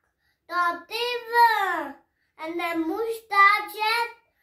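A young boy's voice reciting a rhymed Albanian poem, two phrases with a short pause between them.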